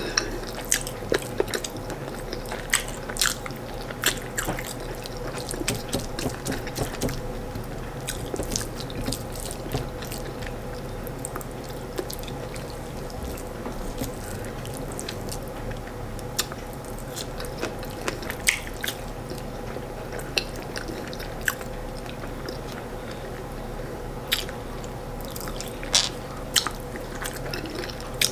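A person eating corn fufu and chicken stew by hand, chewing with wet mouth clicks and lip smacks at irregular moments, over a steady low electrical hum.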